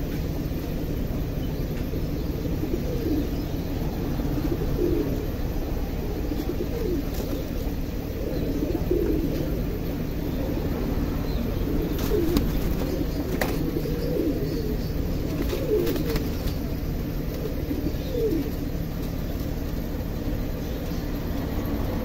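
Fancy pigeons cooing, short low coos repeated every few seconds, over a steady low rumble. Around the middle there are a few sharp clicks and a wing flutter as a pigeon spreads its wings against the cage.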